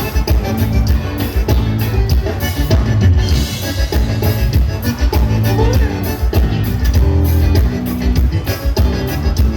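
Live gaúcho band playing amplified dance music, here mostly instrumental, with a steady drum-kit beat and a heavy bass line; a cymbal crash rings about three seconds in.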